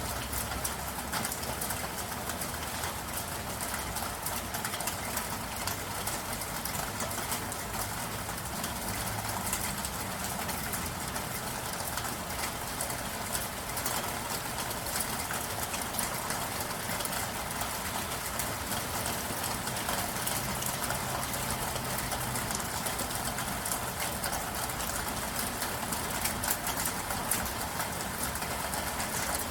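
Steady soft rain: an even hiss of rainfall with a constant patter of individual drop ticks, and a low uneven hum underneath.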